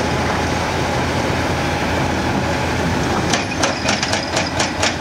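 Hitachi ZX490LC-7 excavator's engine running steadily while its Dehaco IBEX 4000GS hydraulic hammer pauses. About three seconds in, the hammer starts striking again at about four sharp blows a second.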